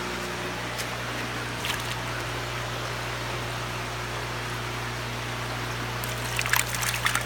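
Running, bubbling water and a steady low hum of hatchery tank plumbing and aeration. From about six seconds in, a dip net splashes as it scoops fish out of a tank.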